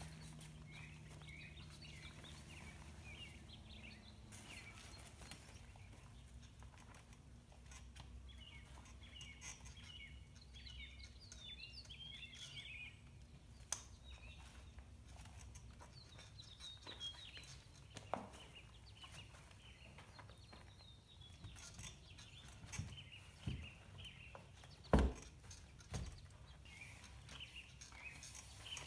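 Birds chirping repeatedly, with scattered soft thumps and handling noises as fabric insulation wrap sections are fitted around a beehive; the loudest thump comes about 25 seconds in. A faint low hum fades out after the first few seconds.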